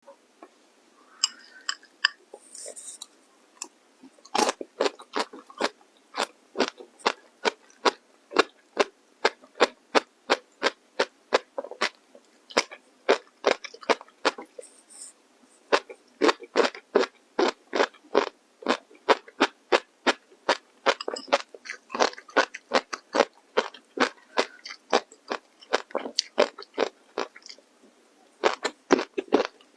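Close-miked chewing of crunchy food: crisp, rapid crunches at about two to three a second, starting in earnest about four seconds in after a few softer sounds.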